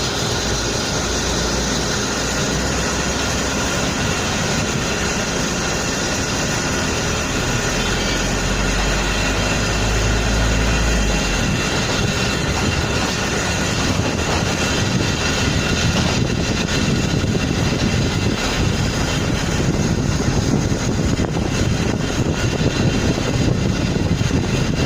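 Steady, loud machinery drone with a dense rushing noise, from the vehicles and equipment of a street misting operation.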